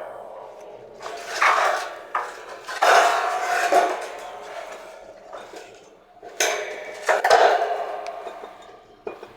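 Metal clanging and clattering: a few sharp hits, each ringing on as it fades.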